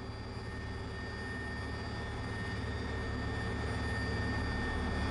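Helicopter in flight heard from inside the cabin: a steady engine and rotor drone with a constant high turbine whine, slowly growing louder.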